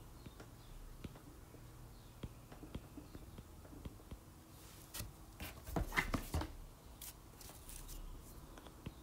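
Stylus tapping and scratching on a tablet's glass screen while handwriting: scattered faint clicks, with a louder flurry of taps about five to six and a half seconds in.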